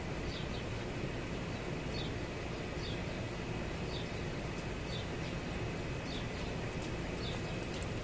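A small bird chirping repeatedly, about once a second, over steady background noise.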